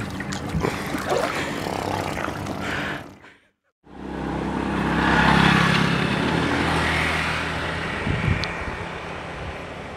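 A motor's steady drone. It drops out briefly about three seconds in, then comes back, grows louder and slowly fades away.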